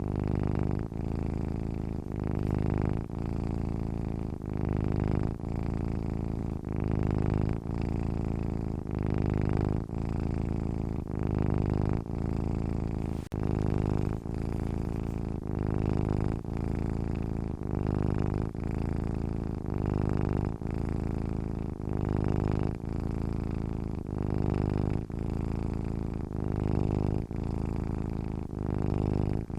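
Domestic cat purring while asleep: a steady low rumble that pulses with its breathing, breaking briefly about once a second as it switches between breathing in and out.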